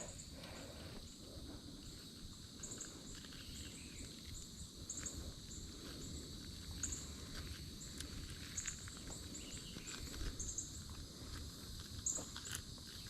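Outdoor insect chorus: a steady high buzz with short, high chirps repeating every second or so, and a few faint scattered clicks.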